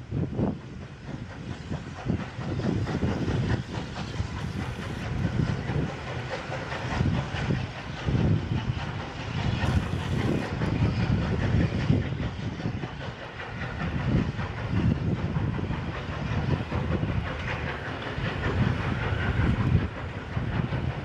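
Steam locomotive chuffing as it hauls a train of coaches away, with the carriage wheels clicking over rail joints and a steady hiss of steam.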